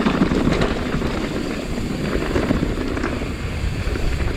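Mountain bike rolling fast down a dirt trail: steady wind rush on the microphone with the low rumble and clatter of tyres and bike over the ground.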